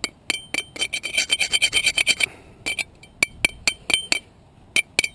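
Steel hand trowel scraping and tapping against a large rusty iron spike to knock the dirt off it: sharp metallic clinks with a short ring, a fast run of them about a second in, then scattered single taps.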